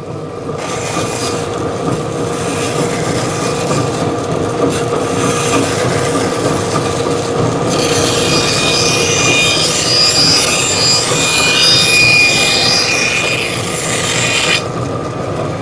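Bandsaw cutting through ash wood to shape a hurl: the steady hum of the running saw under the rasp of the blade in the wood. The cutting gets louder and harsher from about halfway and eases off near the end.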